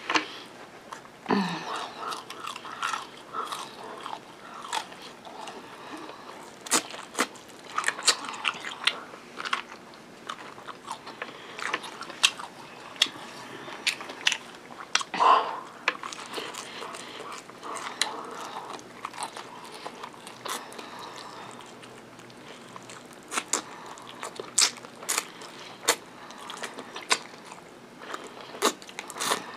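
Close-up chewing and biting of crispy fried chicken wings, with many short sharp clicks and wet mouth sounds throughout.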